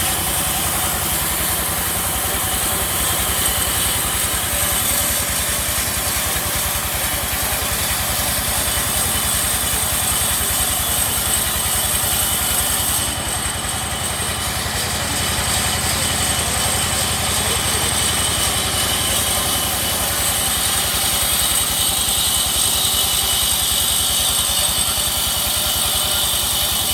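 Sawmill machinery running steadily: a continuous engine-like drone with a thin, steady high whine over it.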